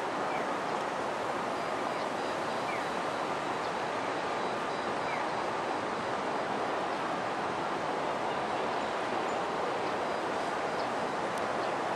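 Steady, even rushing background noise of a city street, with no distinct events standing out.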